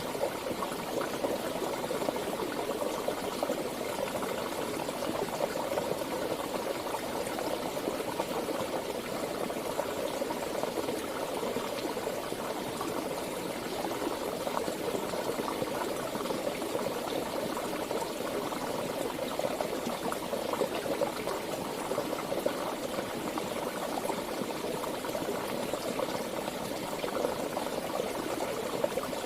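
Steady rush of flowing water, an even, unbroken sound with no change in level.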